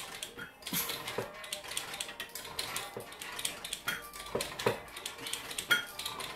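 Irregular metallic clicks and clinks from a homemade leg-extension bench being worked through reps, with a couple of short ringing clinks about four seconds in and a louder one near the end.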